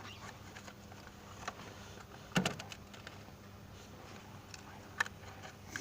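A few sharp clicks and knocks of hand tools, such as a spark plug socket or wrench, at work under a car's bonnet. The two loudest come about two and a half and five seconds in, over a faint steady hum.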